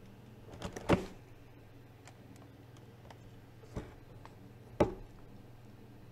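Sharp knocks and clicks of a phone being handled and repositioned on its mount, close to its own microphone, the loudest about a second in and again just before five seconds, with lighter ticks between, over a low steady hum.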